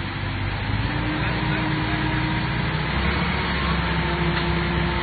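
A fire truck's engine and water pump run steadily while its roof-mounted water cannon sprays a jet of water, with a constant rushing hiss of spray. The engine's pitch steps up slightly a couple of times.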